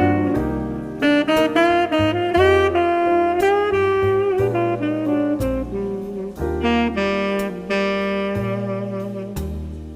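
Background music: a jazzy saxophone melody over a steady bass line.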